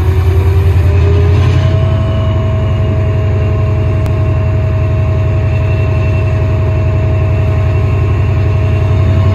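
Class 68 diesel-electric locomotive's Caterpillar V16 engine running while the locomotive stands, a loud, steady, throbbing low rumble with a steady whine over it.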